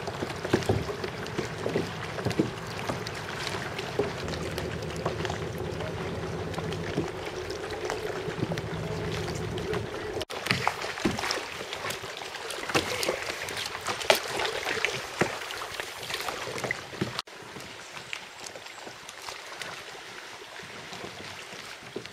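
Kayak paddling close by: paddle blades dipping and splashing, with water dripping and lapping against the hull in many small clicks and splashes. A steady low hum runs under the first half. The sound changes abruptly twice, and it is quieter after the second change.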